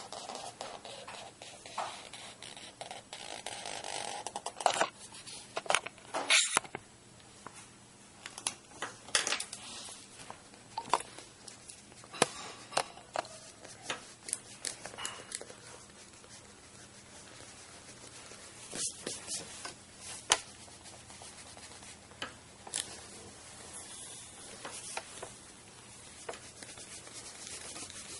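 Pen drawing on paper: short, irregular scratching strokes of the tip across the sheet, with the hand rubbing and brushing over the paper.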